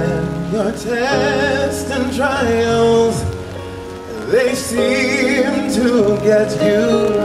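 Gospel choir singing: several voices hold chords together while a lead voice sings over them with a wavering vibrato.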